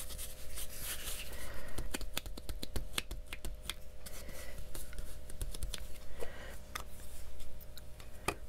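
A brush scrubbing gold leaf down onto the adhesive on a paper page: irregular crisp crackling and rustling of the thin leaf and paper, pressing it onto the sticky spots so they are covered.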